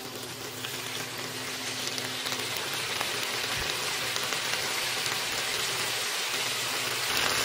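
Chayote squash strips and onion sizzling in hot oil in a wok over high heat, the sizzle growing steadily louder.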